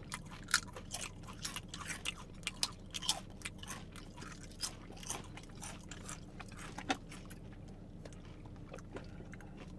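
Close-up crunching and chewing of a Paqui ghost pepper tortilla chip: quick crisp crunches for about the first five seconds, then thinning to a few scattered crunches.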